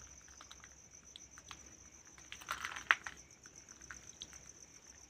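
Crickets trilling steadily at a high pitch. About two and a half seconds in there is a short spell of rustling and clicks, with one sharp click near three seconds.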